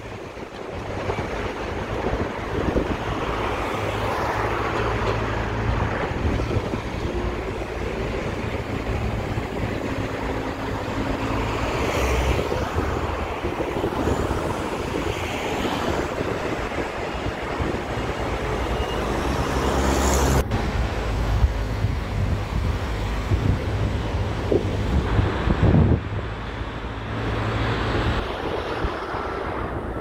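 Wind buffeting the microphone over a steady low engine rumble, with a few brief sharper noises along the way.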